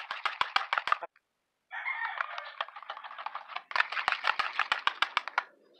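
A utensil whisking thin cake batter in a bowl: rapid clicking and scraping taps against the bowl's side. It cuts out for about half a second a second in, then goes on.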